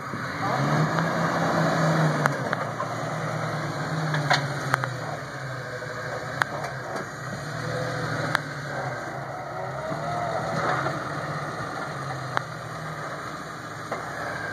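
Jeep Wrangler's engine running at low revs as it crawls over boulders, the throttle picking up about half a second in and then rising and easing, with a few short sharp knocks.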